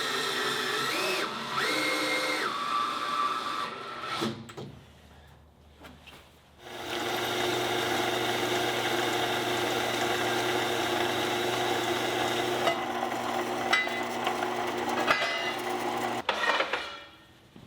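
Power drill running in two stretches: a short run of about four seconds with a brief change in speed, a pause, then a long steady run of about nine seconds that stops near the end, while fastening a steel door jamb with screws.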